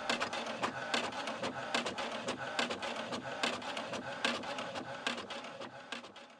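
Fast, irregular soft clicking and scratching that fades away to silence at the end.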